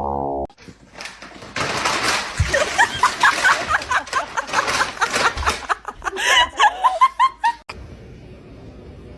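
People laughing hard for several seconds, then the sound cuts off abruptly near the end.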